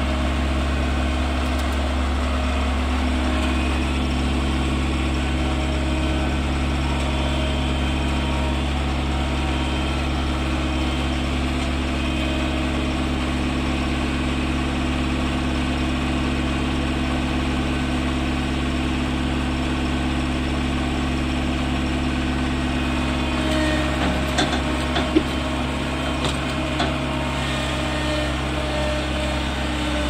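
Tracked combine harvester's diesel engine running steadily as the machine drives up to and onto the loading ramps, with a change in engine note about three seconds in. A few sharp clanks near the end.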